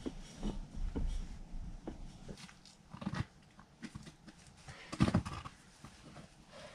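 A hiker's footsteps and shoe scuffs on rock and dirt as he scrambles through a rocky gully. The steps are uneven, with a few louder knocks about three and five seconds in.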